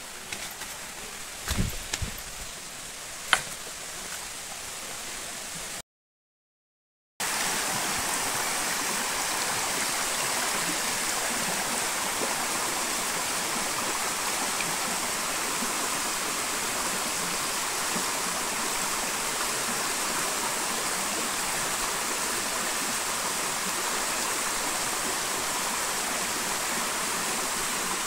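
Small rain-fed waterfall and stream running over rocks: a steady, even rush of water close by. In the first few seconds the water is quieter, with a few sharp knocks of footsteps on loose stones, then the sound cuts out briefly about six seconds in.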